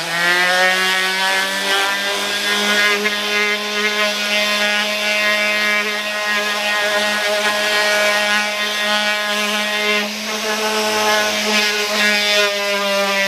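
Random orbital sander running at a steady pitch as it sands the painted, CA-leveled surface of a motorcycle fairing panel, with a brief dip in level about ten seconds in.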